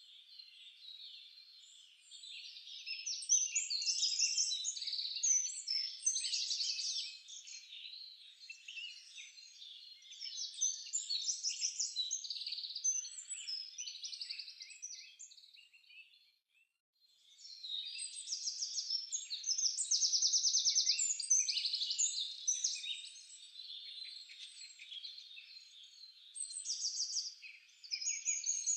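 Several birds chirping and trilling together in a continuous chorus of quick, high calls. It fades almost away briefly past the middle, then comes back.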